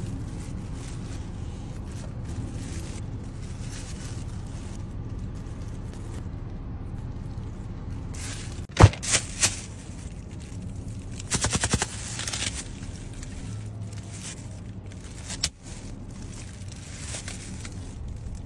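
Food and wrappings handled in plastic gloves: rustling and crackling, with a sharp click about nine seconds in and a quick run of crackling clicks a couple of seconds later, over a steady low hum.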